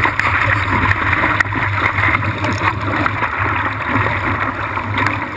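Steady rush and splash of water streaming along a surfboard as it rides through small whitewater, picked up by a camera sitting at water level on the board's nose.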